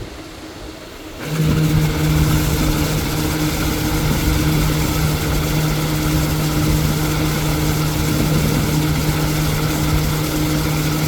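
A machine starts up about a second in and runs steadily with a loud, even hum: a feed-making machine of the kind used to produce floating fish feed pellets.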